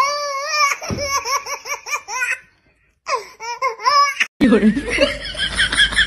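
High-pitched laughter in quick, repeated ha-ha pulses, in two bursts with a short break between them. About four and a half seconds in it cuts off, and a denser sound with a low hum under it takes over.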